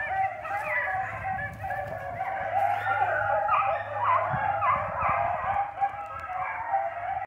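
A pack of young hounds baying together in full cry on a rabbit's trail, many voices overlapping without a break.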